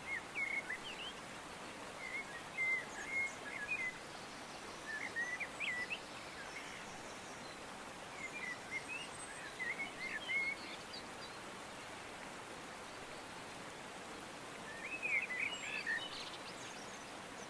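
A bird chirping in short phrases of quick, rapid notes, five or so phrases a few seconds apart. Under it runs a steady background hiss of outdoor noise.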